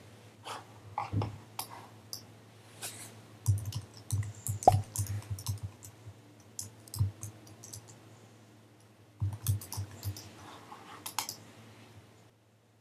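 Irregular clicks and light knocks coming in bunches, loudest around the middle, over a faint steady low hum; the sound cuts off sharply near the end.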